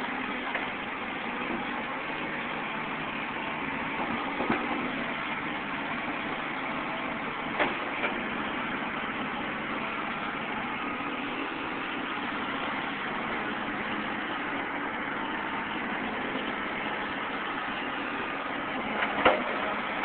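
Caterpillar 235 excavator's diesel engine running steadily as it works. A few sharp knocks stand out: about half a second in, around four and a half and seven and a half seconds, and a louder one near the end.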